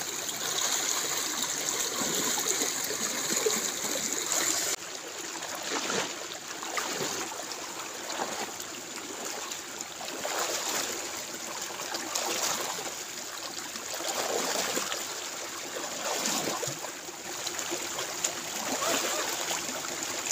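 Water flowing and trickling in a shallow rice-field ditch, with irregular louder splashes. The sound changes about five seconds in, the hissing top end dropping away.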